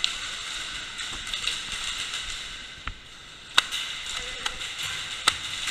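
Airsoft guns firing single shots: five or so sharp snaps, irregularly spaced about a second apart, over a steady outdoor hiss.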